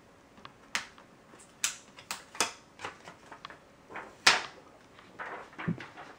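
Irregular light clicks and taps, about ten of them, from hands handling a thin aluminium laptop on a desk, with the loudest knock about four seconds in and some soft rustling near the end.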